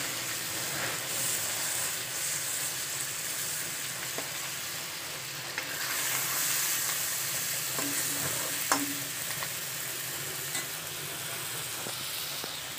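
Fish pieces and onion masala sizzling in oil in a karahi, turned over with a steel spoon that scrapes the pan and clicks against it a few times.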